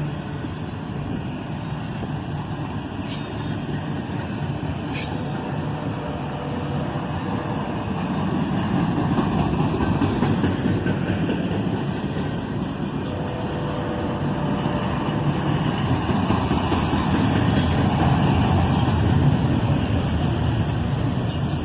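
A CSX intermodal freight train rolling past, a steady rumble of wheels on rail that swells louder about ten seconds in and again near the end. The train is slowing to take a siding.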